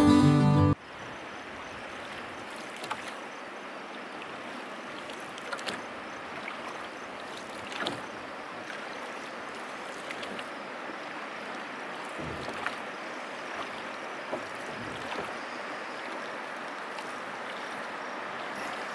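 Guitar music cuts off under a second in, giving way to river water washing steadily against a drift boat's hull as it floats, with scattered faint clicks and splashes.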